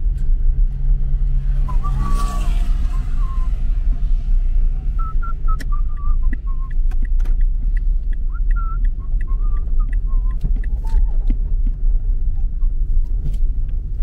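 Steady low rumble of a car's engine and tyres heard from inside the cabin while driving on a highway. About two seconds in a short pitched sound rises over it, and faint warbling tones come and go in the middle.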